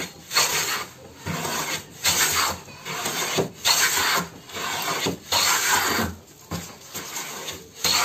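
Restored Anant hand plane pushed in repeated strokes along a wooden strip, each stroke a rasping hiss as the blade cuts a shaving, about one stroke a second. It is the first test of the restored plane, and it is taking full shavings.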